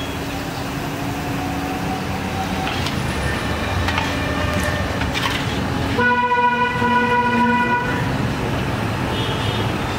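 Street traffic noise with a vehicle horn sounding once, a steady blare of about two seconds past the middle.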